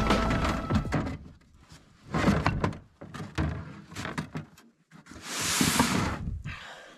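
Ice-fishing gear being handled and set down on snow: a few dull knocks and thuds, and about five seconds in a rustling, scraping rush lasting about a second.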